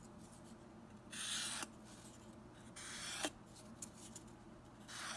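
Three short, dry rubbing scrapes of small balsa wood parts handled and slid against wood.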